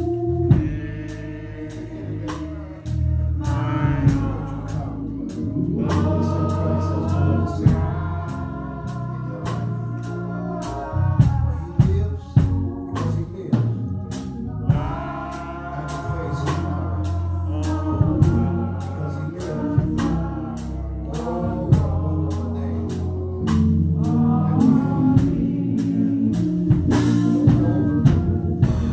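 Gospel song from a singing ensemble and band: voices singing over sustained keyboard and bass, with a steady drum beat.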